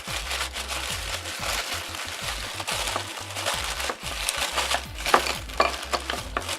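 Crinkling and rustling of packaging being handled by hand, with small clicks and taps, as art supplies are taken out of a subscription box.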